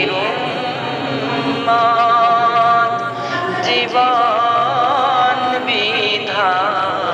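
A man singing a Bengali Islamic gojol (devotional song), with long held notes and wavering, ornamented turns of pitch.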